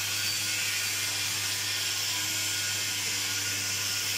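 Electric workshop machinery running steadily: a constant low hum under a high hiss and whine, with no starts or stops.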